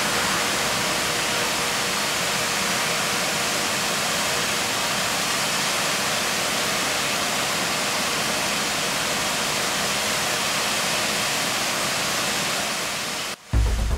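Discoloured, foamy wastewater pouring from a drainage pipe outfall into a river: a steady rushing splash of falling water. It cuts off abruptly near the end.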